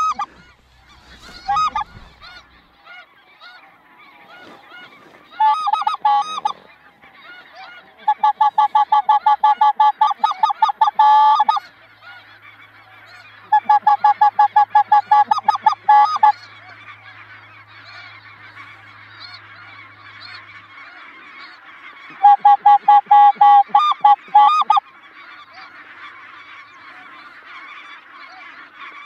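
Flock of snow geese calling overhead: four loud runs of rapid, evenly spaced yelping honks, with a steady din of many more geese calling that builds from about halfway through.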